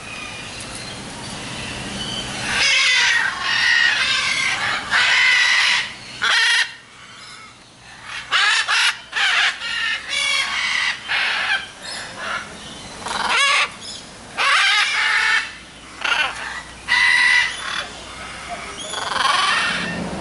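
Parrots screeching, harsh calls repeated one after another, about a dozen over the stretch.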